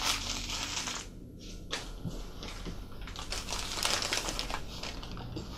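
Newspaper wrapping rustling and crinkling as a small die-cast car is unwrapped from it, with a few light clicks.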